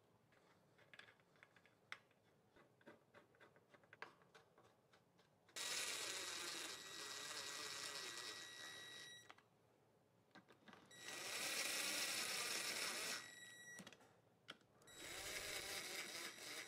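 Cordless drill/driver running bolts into a small-engine crankcase cover in three runs of a few seconds each, its motor whining steadily. Before the first run come a few seconds of light clicks as bolts and parts are handled.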